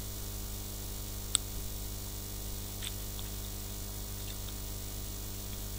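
Steady electrical hum and hiss from the recording setup, with one short click about a second and a half in and a couple of fainter ticks a little later.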